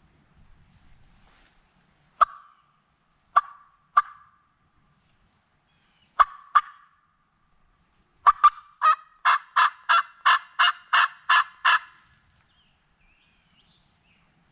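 Turkey mouth call blown by a hunter imitating a hen: a few spaced single yelps, then a fast run of about a dozen yelps. Calling to make a gobbler answer.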